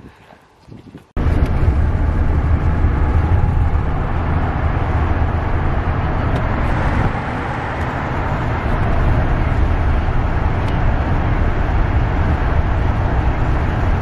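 Car cabin noise at highway speed: a steady deep engine and road rumble under a broad rush of tyre and wind noise. It cuts in abruptly about a second in, after a moment of faint outdoor quiet.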